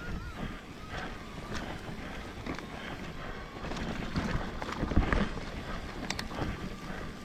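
Mountain bike rolling over a rough trail: tyre noise on dirt with scattered rattling knocks, the loudest a sharp thump about five seconds in.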